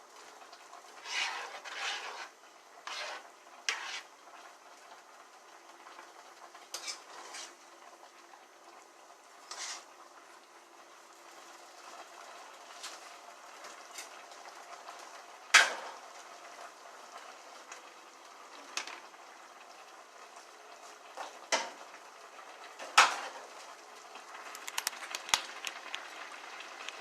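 Cooking utensils knocking, clinking and scraping against pots and dishes, in scattered short strokes. Two sharper clanks come a little past halfway and near the end. A faint steady hiss runs underneath.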